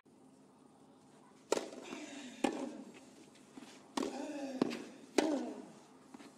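Tennis ball struck with rackets and bouncing on a clay court: about five sharp knocks roughly half a second to a second apart, with short vocal sounds after some of the strikes.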